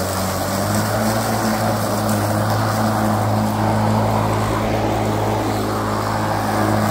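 Kobalt 40-volt cordless electric lawn mower running steadily while mowing grass: an even low hum from the motor over the rush of the spinning blade.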